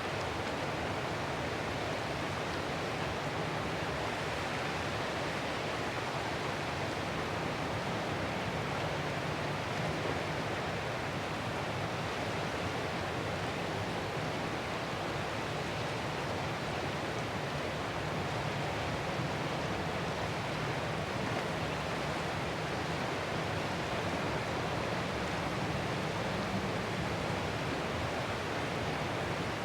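Ocean surf: a continuous, even wash of waves with a steady level throughout and no single breaker standing out.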